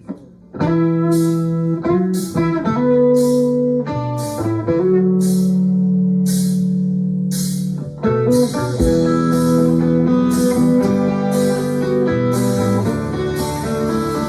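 A rock band starts playing about half a second in: electric guitars and bass holding sustained chords, with drums keeping time on cymbals, which grow busier about eight seconds in.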